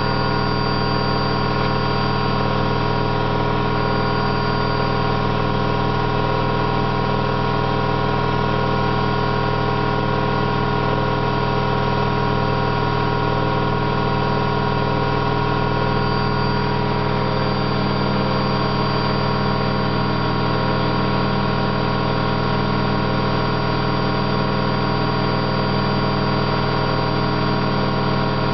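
Candy GO4 127 DF washing machine spinning at a steady speed, with loud drum bearings: worn bearings, which the owner says aren't really that bad, just loud.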